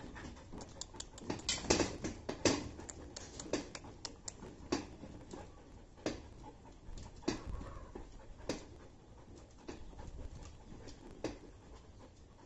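Belgian Malinois dogs shifting about in a kennel cage: claws clicking and scraping on a plastic slatted floor, with irregular sharp taps scattered throughout.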